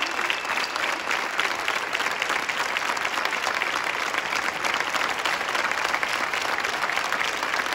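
A crowd of spectators applauding: many hands clapping together in a steady, dense patter.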